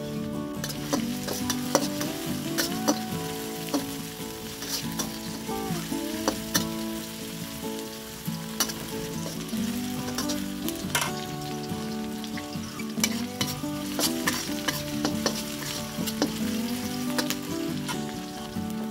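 Sliced onion and garlic sizzling in hot oil in a metal wok. A metal spatula stirs them, scraping and clicking against the wok at irregular moments.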